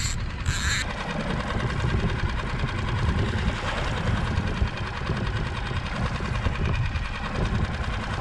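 Mercury 6 hp outboard motor running steadily at trolling speed, a low rumble with wind and water noise over it.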